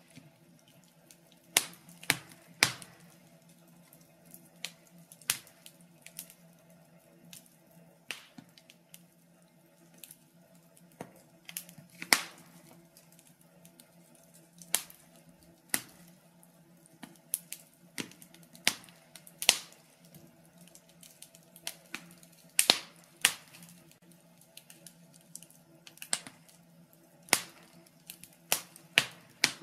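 Wood fire crackling in a stove: sharp, irregularly spaced pops and snaps, some much louder than others, over a steady low hum.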